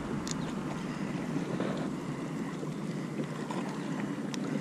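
Choppy harbour water lapping, with wind noise on the microphone; a couple of faint ticks.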